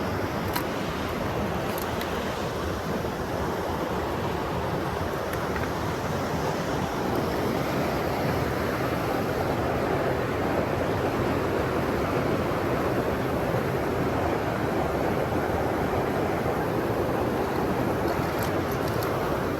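Steady rushing of a mountain stream, an even wash of running water that grows a little louder about a third of the way through.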